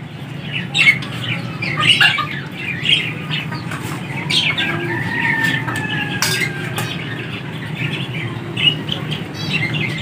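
Backyard pet birds, pigeons, ducklings and chickens, giving many short chirps and calls and flapping their wings as they crowd in to feed on scattered rice, over a steady low hum.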